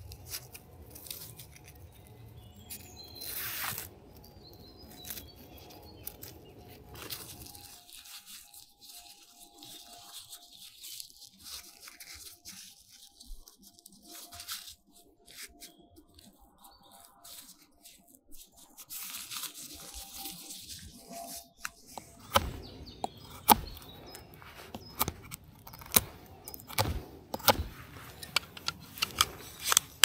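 Tent and camp gear being handled while a tent is pitched: fabric rustling with scattered small clicks, then, from about eight seconds before the end, a quick run of sharp clicks and knocks.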